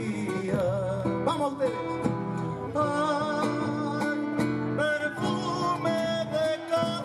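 Live Argentine folk music: strummed acoustic guitars and a bombo legüero drum keeping the beat, with a singing voice holding wavering notes over them.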